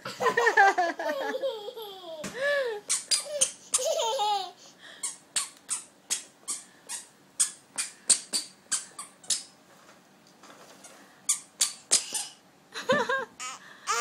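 Toddler's squeaky shoes squeaking with each step, a quick series of short high squeaks at about two a second. A young child laughs and squeals over them in the first few seconds and again near the end.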